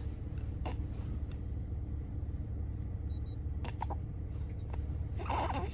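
Steady low road and engine rumble inside the cabin of a moving Maxus V90 camper van, with a few faint clicks and a short, louder burst of sound near the end.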